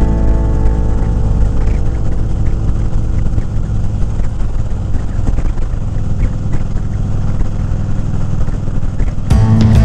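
Motorcycle ride sound: a Harley-Davidson Ultra Classic Limited's V-twin engine running at cruising speed, under steady wind and road noise on a helmet-mounted microphone. Guitar music comes back in near the end.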